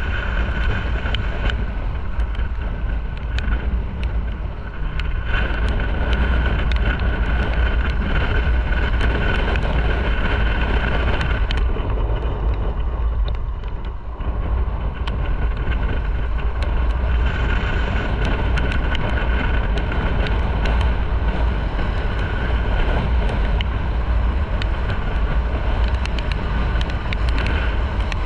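Motorcycle ride on wet city streets: wind rumbling on the microphone over the engine running and the tyres on the wet road.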